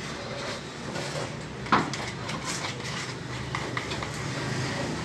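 Metal putty knife scraping and clinking as filler putty is worked onto a gypsum ceiling board, with one sharp metallic clink a little under two seconds in.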